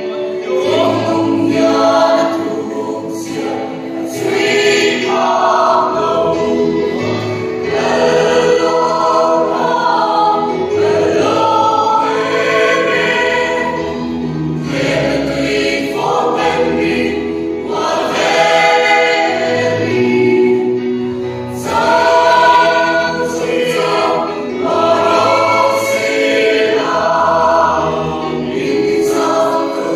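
Mixed choir of men's and women's voices singing a Mizo choral song in sustained phrases that swell and ease.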